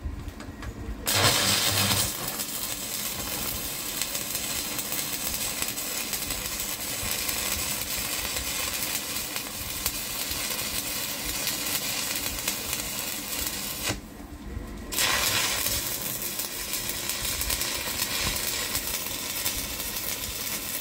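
Welding arc from a Gama 1500 PFC inverter welder, crackling and hissing steadily as it burns. The arc is struck about a second in, breaks off for about a second around two-thirds of the way through, then is struck again and runs until just before the end. This is a test weld after a repair of its power-factor-correction stage, and the arc holds.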